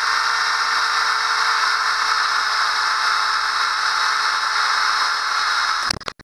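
Handheld power drill running at a steady speed, boring a small pilot hole through a paper template into a chopping board. Near the end the trigger is released and the motor winds down and stops.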